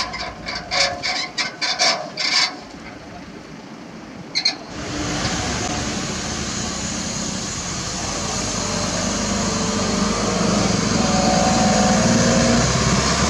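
About a dozen sharp metal clanks in quick succession, about three a second, from work at the rear of a self-loader truck carrying an excavator, with two more a little later. Then a concrete mixer truck's diesel engine running with road noise, growing steadily louder as the truck approaches.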